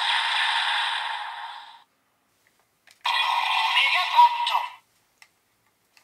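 Kamen Rider Revice toy sound effects from the toys' small speakers: the Two-Sidriver gun's finisher call 'Evilyty Perfect Finish!' with electronic music fades out within about two seconds. After a short silence with a faint plastic click, a handheld stamp toy plays a short electronic voice call, 'Mega Bat', with a jingle.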